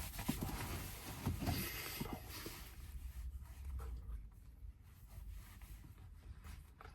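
Faint chewing and small handling noises of someone eating a soft pastry slice, busiest in the first couple of seconds and then quieter.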